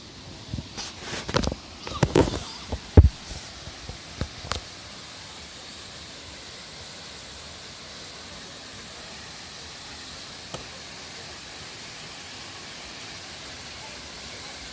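Steady rushing noise of a waterfall, with a quick run of sharp knocks and clicks in the first few seconds, the loudest a little after three seconds in.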